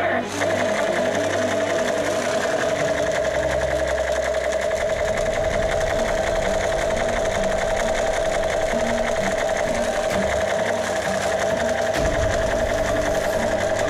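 Battery-operated toy machine gun firing continuously: a fast mechanical rattle with a steady buzzing tone running without a break.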